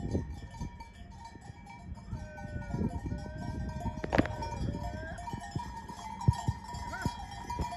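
Cowbells on walking cattle clanking and ringing steadily, with the dull thuds of hooves on a dirt road. A few rising and falling calls sound between about two and five seconds in.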